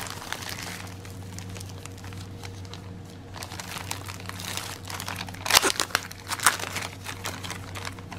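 Clear plastic wrapping around a rolled diamond-painting canvas crinkling as it is handled, with sharper crackles about five and a half and six and a half seconds in. A faint steady hum runs underneath.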